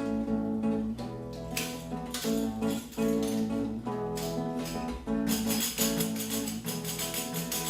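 Instrumental intro of a pagode samba: acoustic guitar playing changing chords, with a tambourine shaking in about five seconds in.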